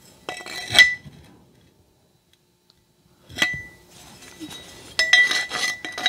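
Metal clinks of a steel tape measure blade tapping and sliding against a flat steel bar as the bar is measured, several taps leaving a short ringing tone: a cluster near the start, a single sharper tap about three and a half seconds in, and a quick run of clinks near the end.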